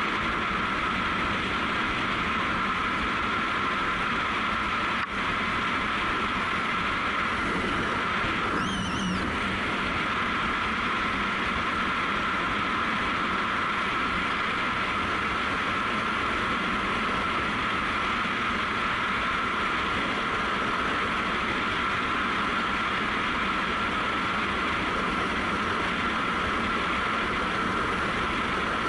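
Honda CRF250L's single-cylinder four-stroke engine running steadily at cruising speed on the road, mixed with wind and tyre noise, heard from the moving bike.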